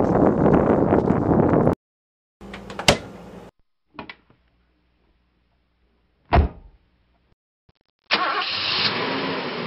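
A loud rushing noise that cuts off abruptly, then a click and, about six seconds in, a sharp knock like a car door shutting on a Mahindra Scorpio SUV. About eight seconds in its engine comes in and runs steadily.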